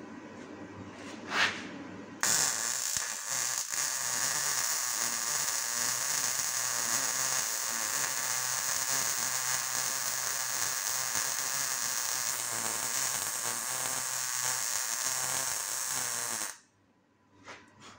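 MIG welder's arc crackling steadily as steel box section is stitch-welded into a rusted van door channel. The arc strikes about two seconds in, after a brief short noise, and cuts off suddenly near the end.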